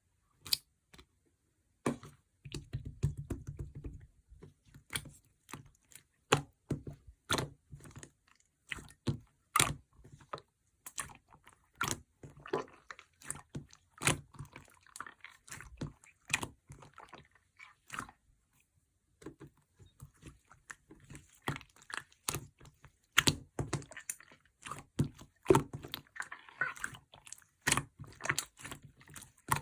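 Slime being squeezed and pressed by hand, giving a run of irregular sticky clicks and small crackling pops, a few a second.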